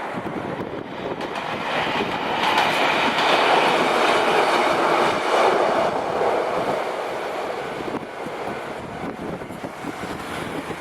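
Kishigawa Line electric train running past a level crossing. It grows louder to a peak about four seconds in, then fades as it draws away.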